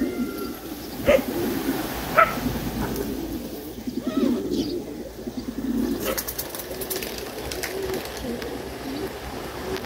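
Racing pigeons cooing, a continuous low warbling, with two sharp clicks about one and two seconds in.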